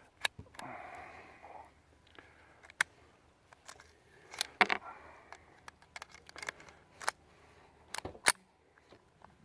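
Metallic clicks and clacks of a .22 semi-automatic pistol's action and magazine being worked by hand, a dozen or so separate sharp clicks with a few louder ones. There is a brief rustle near the start.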